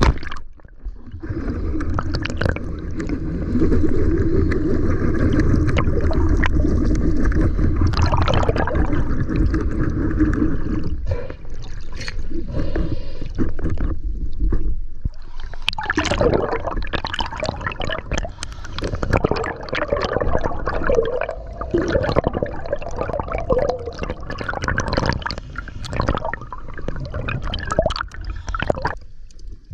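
Underwater water noise picked up by a camera in an underwater housing: gurgling and sloshing with many irregular small knocks and clicks, changing abruptly a couple of times.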